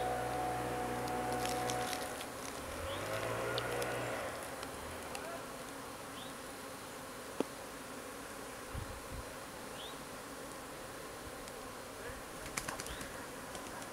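Honeybees buzzing around an open hive during a nuc installation, with a steady hum early on that glides in pitch as bees fly past, and a few light clicks of hive equipment being handled near the end.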